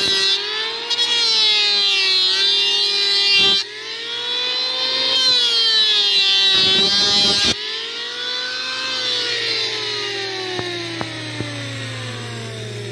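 Handheld electric wood planer running as it shaves the edge of a painted wooden beam: a loud, high motor whine whose pitch dips and recovers as the blades cut. Over the last few seconds the pitch falls steadily.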